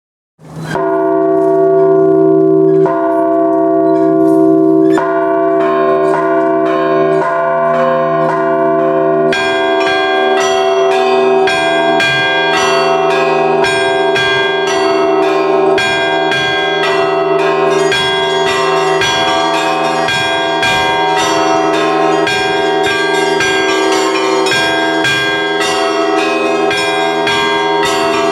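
Russian Orthodox church bells rung in the traditional zvon: a few slow strokes of the larger bells ring out, then from about nine seconds in the small high bells join in a fast, dense peal over the lower bells.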